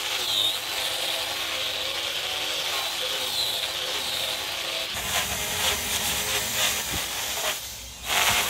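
Small handheld angle grinder with a sanding disc running against a wooden bed rail: a steady high whine and hiss whose pitch wavers as the disc is pressed into the wood. About five seconds in the sound turns rougher and heavier, and it drops away briefly near the end.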